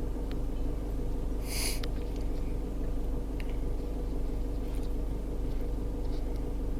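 Car engine idling steadily, heard from inside the car, with a brief high-pitched noise about a second and a half in.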